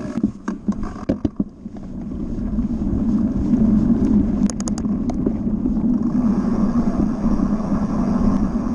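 Mountain bike setting off downhill: a few clicks and knocks in the first second and a half, then a rushing noise of knobby tyres on grass and dirt mixed with wind on the microphone, building over the first three seconds as speed picks up. A brief rattle comes about four and a half seconds in.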